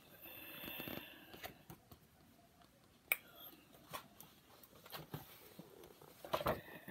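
Paper pages of a thin paperback picture book rustling and flipping as the book is handled, with scattered light clicks and taps and a short cluster of louder handling sounds near the end.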